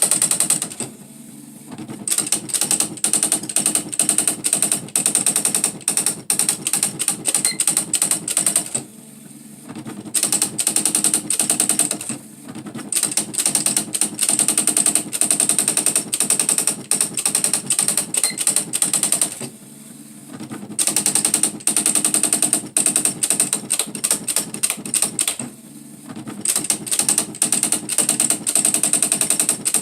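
Smith Corona SE 200 electronic typewriter printing on its own with its daisy print wheel: long runs of very fast striking clicks, broken about five times by brief pauses between lines.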